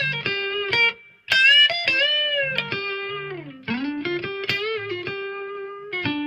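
Electric guitar with single-coil pickups, a 2011 Fender American Special through a Hiwatt Maxiwatt 50 amp, playing a slow lead line of sustained notes with string bends that rise and fall in pitch. It is a clean tone with the compressor on and the noise gate cutting the single-coil hum.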